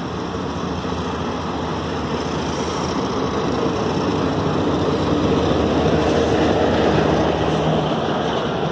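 Diesel locomotive passing close by on the station track: its engine runs and its wheels rumble steadily, growing louder toward a peak near the end. A red CPTM electric train comes into the station on the neighbouring track over its final seconds.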